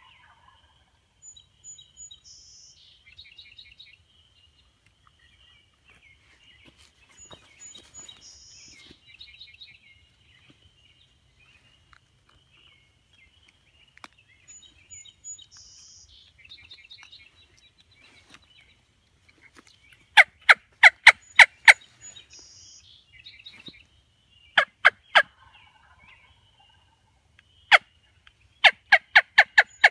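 Dawn bird chorus, with one songbird repeating a song of a high thin note, a falling note and a trill every six or seven seconds. About two-thirds of the way in come runs of loud, sharp clicks at four or five a second, in several short groups.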